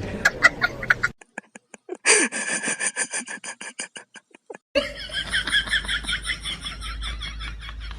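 High-pitched laughter in quick repeated pulses, in two long runs: one starting about two seconds in, the next just after the midpoint.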